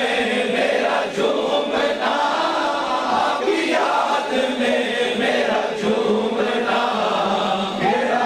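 A naat chanted by a group of men's voices without instruments, a lead singer on a microphone over the massed voices.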